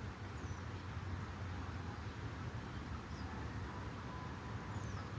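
Quiet background noise: a steady low hum with a faint hiss, and a few faint, short, high chirps.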